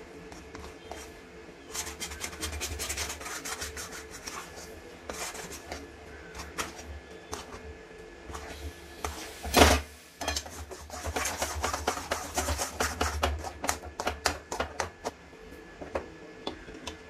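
Metal ladle stirring and scraping thick moong dal halwa around an aluminium kadai, in bursts of quick scraping and tapping strokes. The halwa has cooked down enough to come away from the pan. One loud knock of metal on the pan comes just before the middle.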